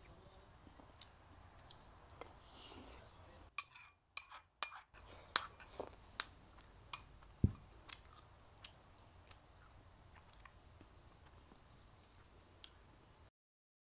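A ceramic spoon clinking and scraping against a ceramic rice bowl in a string of sharp clicks, with quiet chewing before them. The sound cuts off shortly before the end.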